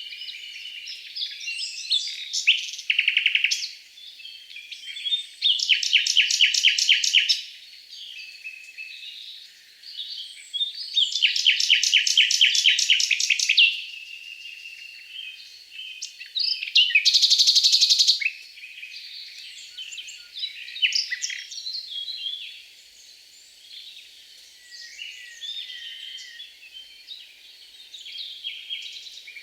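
Several songbirds singing and calling, with a chatter of short high notes throughout. Two long trills of fast repeated notes stand out, about six and eleven seconds in, and a loud buzzy call lasts about a second near the seventeen-second mark.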